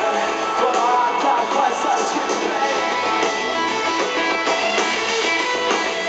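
Rock band playing live through a stadium PA, with electric guitar to the fore over the drums.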